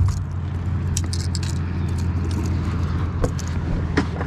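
Light metallic clicks and rattles of a crankbait's treble hooks as the lure is worked free of a small bass, over a steady low hum.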